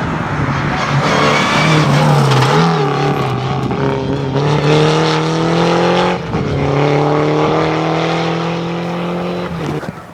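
Rally car engine accelerating hard, its pitch climbing steadily in a gear. It drops briefly at an upshift about six seconds in, then climbs again. The sound falls away abruptly near the end.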